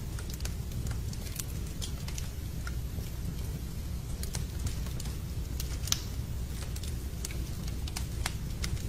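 Log fire burning in a fireplace: a steady low rumble of flames with irregular sharp crackles and pops, the loudest pop about six seconds in.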